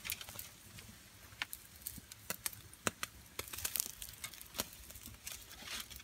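Wood campfire crackling, with scattered sharp pops at irregular intervals over a faint hiss.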